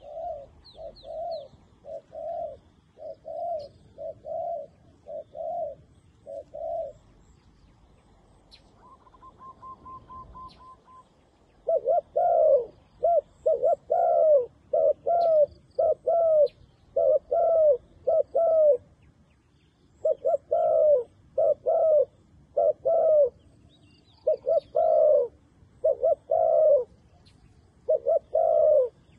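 Spotted dove cooing over and over in short grouped phrases, softer for the first several seconds, then louder after a short pause about a third of the way in.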